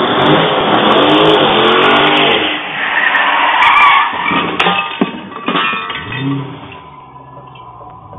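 A car engine revving hard and rising in pitch with squealing, skidding tyres in a burnout, followed by a few sharp knocks and crunches about halfway through as the car slides off the road and strikes something. The engine then swells briefly and drops away.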